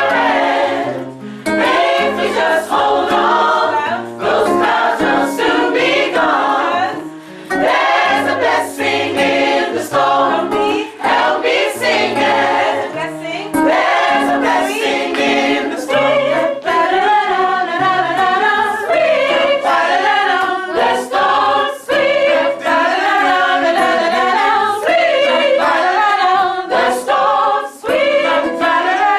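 Gospel choir singing a song together in several voice parts, with low notes held underneath.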